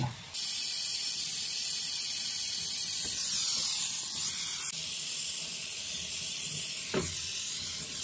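Brazing torch flame hissing steadily as it heats the copper pipe joints on a refrigerator compressor to melt the brazes and free the pipes. There is a brief knock about seven seconds in.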